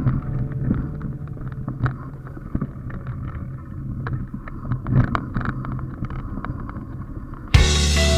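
Wind buffeting the microphone, with scattered clicks and rattles from a downhill ride over rough ground and faint background music underneath. A new song starts abruptly near the end.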